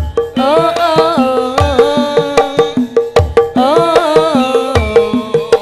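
Live Javanese campursari band music: the kendang hand drum beats in a regular pattern under a wavering melodic lead line.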